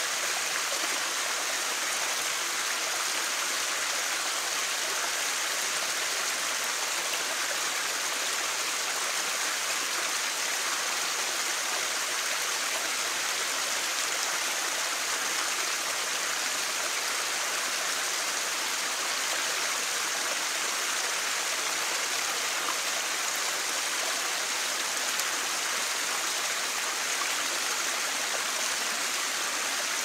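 Small creek pouring over a short drop, a steady rush of splashing water.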